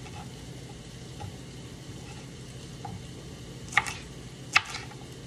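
Kitchen knife chopping green bell pepper on a cutting board: two sharp strikes of the blade on the board near the end, over a faint steady hum.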